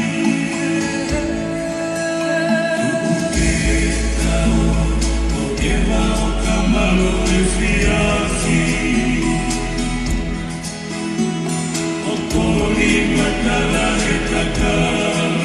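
Tongan song accompanying a tauolunga dance: a group of voices singing together in harmony over long, deep bass notes.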